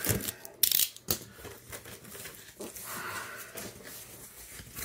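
A package being torn open by hand: a few sharp rips of tape and packaging in the first second or so, then quieter rustling and scraping as the packing is pulled about.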